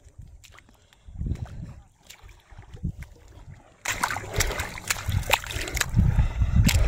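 Splashing and sloshing in shallow, muddy fish-pond water, soft and sparse at first, then suddenly much louder and busier about four seconds in.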